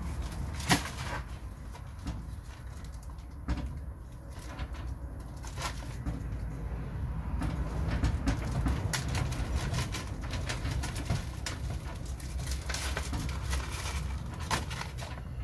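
Light clicks and rustles from hands handling a paper seed packet and plastic seed trays while sowing, over a steady low rumble.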